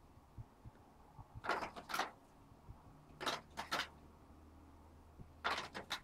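A small bird fluttering its wings against a window pane and scrabbling on the frame, trapped and trying to get out: three short flurries, each in two quick bursts, about two seconds apart.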